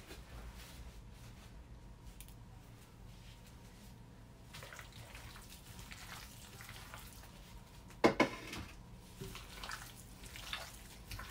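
Raw sliced chicken breast being mixed with marinade by gloved hands in a glass bowl: soft wet squelching and rustling. A sharp knock, twice in quick succession, about eight seconds in is the loudest sound.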